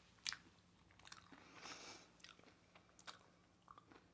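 Faint close-up chewing of a crunchy Hot Cheeto–coated fried pickle: a few soft crunches and wet mouth clicks spaced about a second apart.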